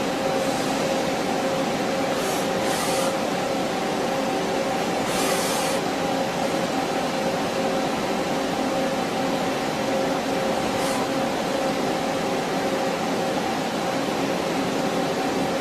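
CNC vertical turning centre running with a steady machine hum carrying two constant tones. Short hissing spurts come several times, about two seconds in, around five seconds in, near eleven seconds and near the end.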